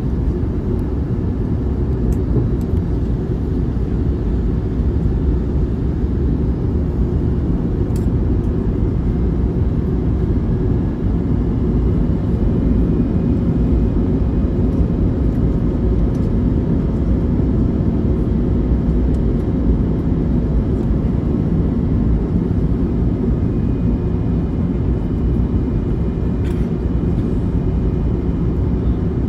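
Steady cabin noise of an Airbus A321neo descending on approach: the low rumble of its Pratt & Whitney geared turbofan engines and the airflow, heard from a window seat by the wing, with a faint high whine over it.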